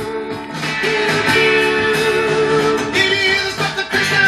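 Guitar music playing back from a vinyl record on a Marantz 6200 turntable, growing louder about a second in.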